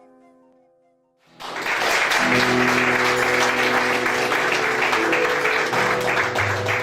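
A plucked guitar chord rings out and fades away. About a second and a half in, applause breaks out and carries on loudly, with held instrument notes sounding beneath it.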